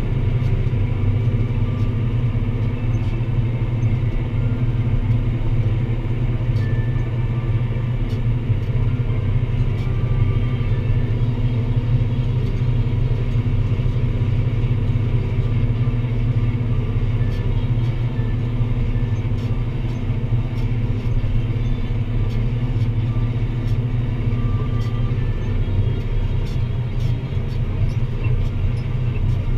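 Deutz-Fahr Agrotron 165 MK3 tractor's six-cylinder diesel engine running steadily under load while pulling a plough, a constant low drone.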